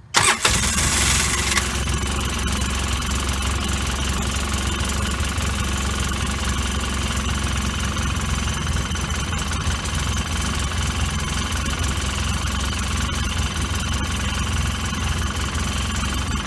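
Polaris 800 engine coming in abruptly with a short hiss over the first second and a half, then running at idle. Its owner's complaint is a rough idle and no power.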